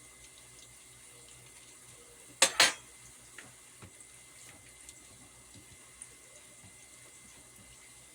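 Plantain pieces frying in hot oil with a faint, steady sizzle. About two and a half seconds in come two sharp knocks of kitchenware in quick succession.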